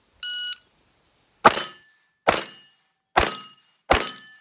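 Shot-timer start beep, then four quick shots from a .22 rimfire pistol, under a second apart, each followed by the ring of a struck steel plate.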